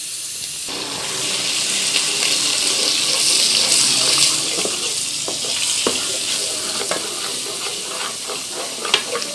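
Ready-made parmigiana tomato sauce sizzling in hot garlic, margarine and oil in a metal pan. The sizzle jumps up sharply under a second in and eases off in the second half, while a spoon stirs and scrapes the pan, with a few clicks near the end.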